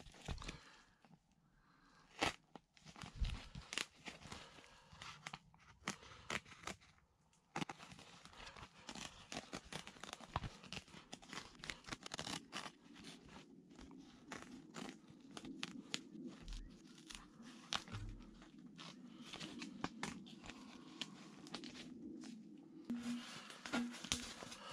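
Irregular crinkling, tearing and rustling with many sharp clicks and knocks, as of materials being handled, and a faint low hum from about halfway on.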